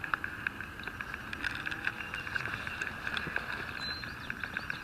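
Scattered light clicks and knocks over a steady high hiss.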